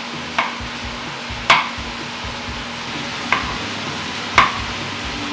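A knife slicing cremini mushrooms on a wooden cutting board, the blade knocking sharply on the board four times at uneven intervals of one to two seconds. Under it, the steady sizzle of vegetables frying in a pan.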